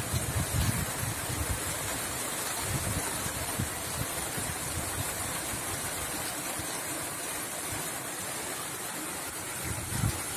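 Rain falling, a steady hiss, with gusts of wind buffeting the microphone just after the start and again near the end.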